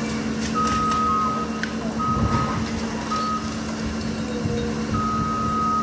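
A heavy machine's warning alarm beeps on one high pitch, four times at uneven lengths, over the steady hum of its engine, with a few knocks about two seconds in.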